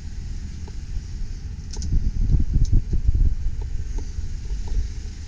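Low, uneven rumble of the 2001 Chevrolet Silverado 2500's engine idling, mixed with wind buffeting the microphone. The rumble swells for about a second and a half in the middle, and a couple of faint clicks come about two and three seconds in.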